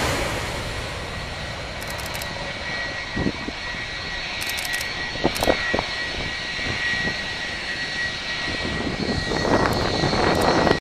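Jet engines of a JetBlue Airbus A320 fading after it passes low overhead on landing, leaving a steady distant jet rumble with a thin high whine that swells again near the end.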